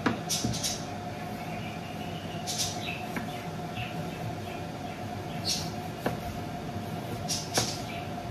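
A knife slicing raw red meat on a wooden cutting board: short scraping strokes and a few sharp knocks of the blade on the board, the loudest right at the start. A steady mechanical hum runs underneath.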